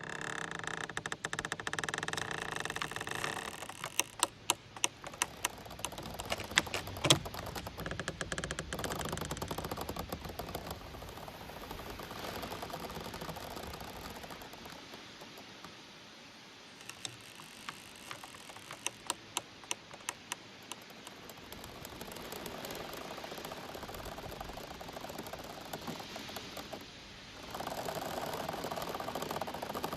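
Giant bamboo stalks creaking and squeaking as they sway in the wind and rub together. A drawn-out creak opens the sound, and runs of sharp clicks and knocks come a few seconds in and again past the middle, over a rustle that swells near the end.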